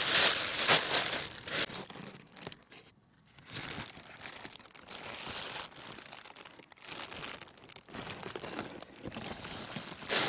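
A plastic bag crinkling and rustling as it is handled to get at the caught fish. It is loudest in the first two seconds, then goes on as softer, irregular rustles.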